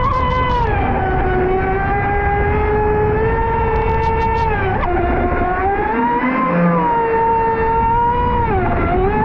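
Pro Boat Sonicwake V2 36 RC boat's brushless electric motor whining at speed, its pitch dipping and climbing back several times as the throttle is eased and reopened, over a constant rush of noise.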